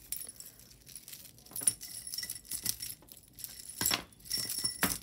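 Metal costume jewelry clinking and jangling as it is sorted by hand, a series of small sharp clinks with a brief ring after each, the loudest a little before the 4-second mark and again near the end.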